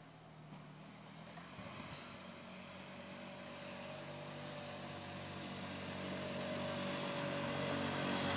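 Polaris 6x6 ATV engine running at a steady pitch, growing steadily louder throughout.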